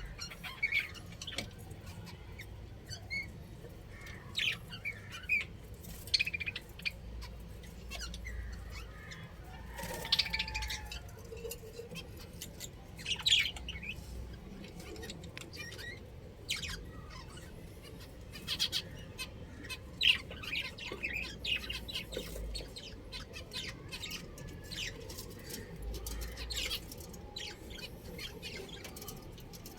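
Budgerigars chirping and squawking: a steady stream of short, irregular chirps, with sharp clicks among them.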